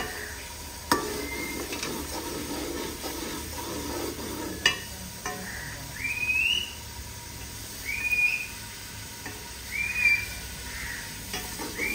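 A steel ladle stirring food sizzling in ghee in a steel pot over a wood fire, with metal scraping and two sharp clinks, as salt and chilli are tipped in. From about six seconds in, a rising whistle sounds four times, about two seconds apart.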